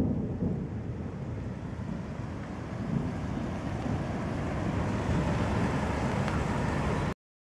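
Tail of a thunderclap rolling away as a low rumble that fades over the first second, with wind rumbling on the microphone. The sound cuts off abruptly near the end.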